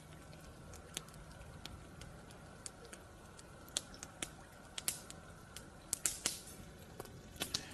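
Campfire crackling: about a dozen irregular sharp pops and snaps over a faint steady background.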